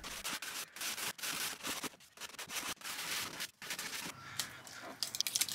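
Clear packaging tape crackling and rasping irregularly as it is pulled from a handheld tape dispenser and pressed over a fiberglass-mash repair, with many small sharp crackles.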